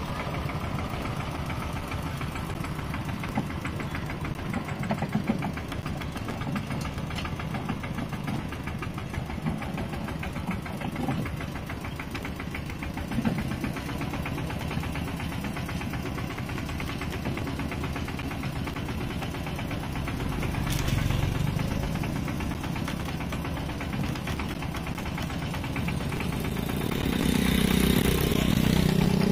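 Mini tractor engine running with a steady, rapid knock. It gets louder about twenty seconds in and again near the end, where its pitch rises as it revs.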